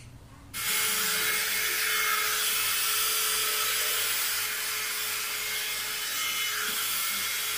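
Hot air brush (a one-step hair dryer brush) switched on about half a second in, running steadily on its low setting: a steady rush of blown air with a thin motor whine underneath.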